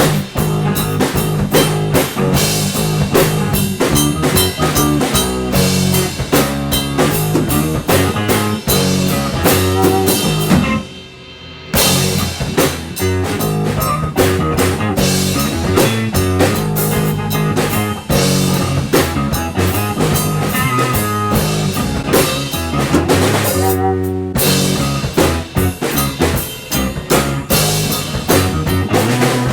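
Band improvising a jam: drum kit and guitar playing a steady rhythmic groove, dropping out briefly about eleven seconds in before coming back in.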